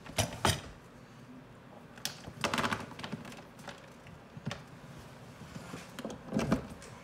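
Handling noise at a workbench: a desoldering gun's power cord being uncoiled and the gun laid down on a cutting mat, giving a few scattered knocks and clatters, the loudest around two and a half seconds in and near the end.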